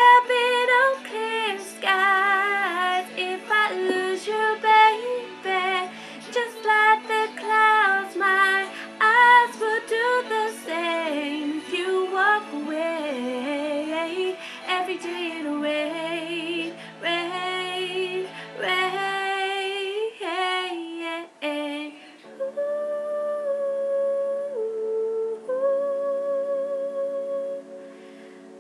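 Song music: a high voice sings wordless, wavering runs over an accompaniment. About 22 seconds in, the runs stop and steady held notes continue to the end.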